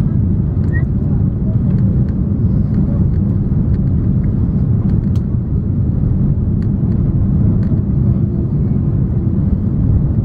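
Steady cabin noise inside an Airbus A340-300 on approach with flaps down: the deep, even rumble of its CFM56 engines and the airflow, with a few faint clicks.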